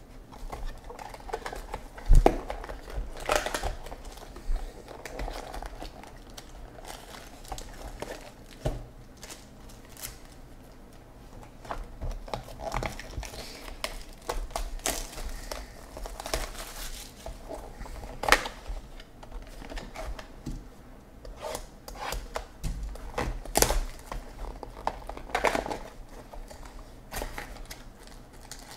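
Sealed baseball card boxes being unwrapped and opened by hand: plastic wrapping and paper crinkling and rustling, with scattered sharp taps and knocks as the boxes and cards are handled, the loudest about two seconds in.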